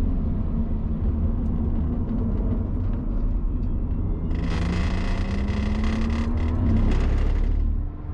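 Car engine pulling hard out of a corner, its pitch rising, with a harsh high-pitched noise and a steady whistling tone joining about four seconds in and cutting off suddenly near the end as the throttle lifts. This is the abnormal noise the car makes under acceleration on corner exit.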